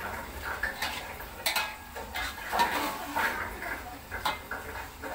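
Metal spatula scraping and clanking against a wok as noodles are tossed and stirred, in irregular knocks and scrapes.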